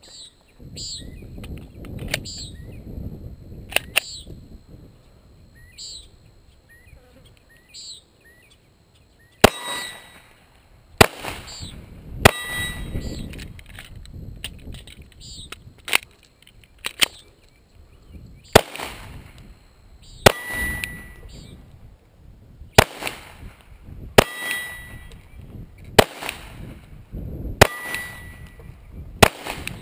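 9mm Glock pistol fired about a dozen times, single shots a second or two apart, beginning about nine seconds in. Several shots are followed by a short ringing clang from steel targets being hit.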